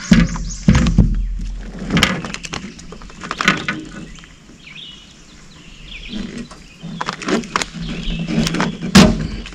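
Irregular clicks, knocks and rustles of a freshly caught bream being handled and unhooked in the hands on a fishing boat. There is a low rumble in the first second or so, and the loudest knock comes near the end.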